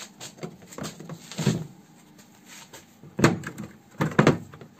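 Nissan Tiida plastic tail-light housing knocking and scraping as it is worked loose from the body by hand, with sharp plastic clacks about three seconds in and again near the end.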